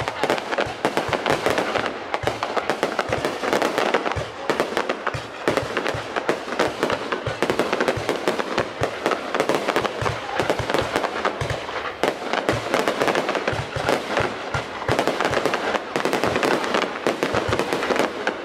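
Fireworks going off in a dense, unbroken barrage of many bangs and crackles a second.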